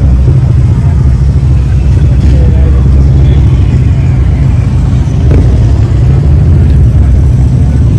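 Motorcycle engines running, a loud steady low rumble, with people's voices faintly underneath.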